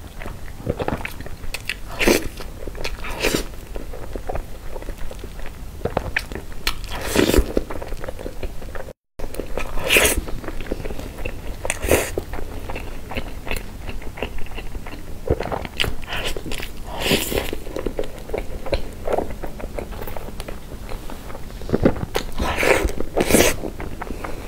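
Close-miked eating sounds: biting and chewing mouthfuls of soft cream cake, in irregular wet, crackly bursts, with a brief moment of dead silence about nine seconds in.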